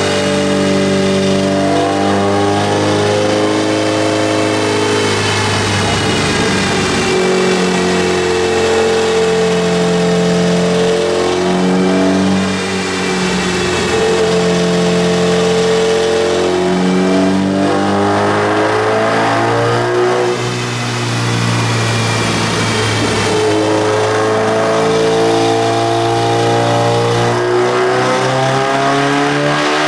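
Turbocharged Honda Civic four-cylinder running on a chassis dyno under load. It is held at steady engine speeds that shift up and down every few seconds, with two brief drops in revs.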